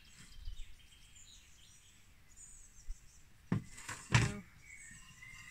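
Wooden batten frame pieces knocking twice, a little under a second apart, as they are set and balanced in place, over faint birdsong.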